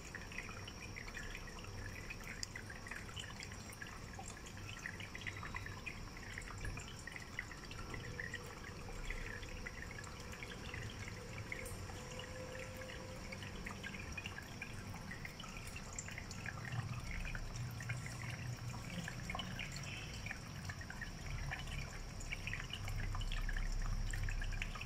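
Cat crunching dry kibble from a stainless steel bowl: a steady stream of small, irregular crunches. A low rumble swells near the end.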